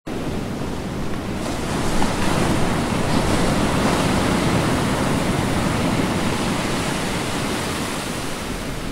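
Ocean waves washing in, a steady rushing noise that swells slightly about two seconds in.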